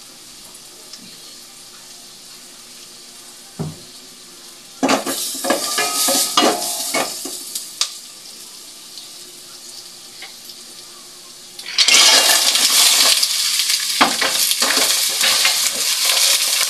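Green mussels sautéing in hot oil in a stainless steel pot. A burst of sizzling and clinking comes about five seconds in, and loud continuous sizzling with clattering shells starts about twelve seconds in as the mussels go into the pot.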